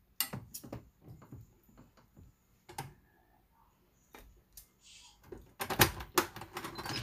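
Tabletop eating noises: scattered clicks and knocks as a metal spoon scoops rice and boiled crab is handled on a foil-covered table. A denser run of louder clicks comes near the end.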